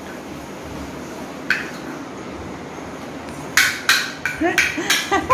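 Sharp clinks and knocks of kitchen utensils striking each other and the floor, a single knock early and then a quick irregular series starting about three and a half seconds in.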